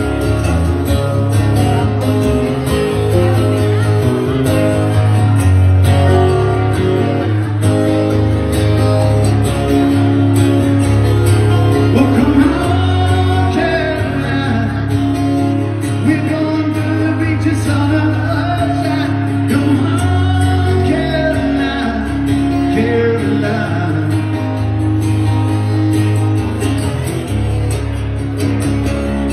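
Live band music: a strummed acoustic guitar over a steady low bass line, with a man singing.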